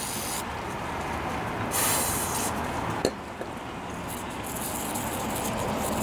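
Aerosol carburetor cleaner hissing in short sprays onto a small-engine carburetor, the longest about two seconds in, then a toothbrush scrubbing the carburetor body near the end to loosen deposits.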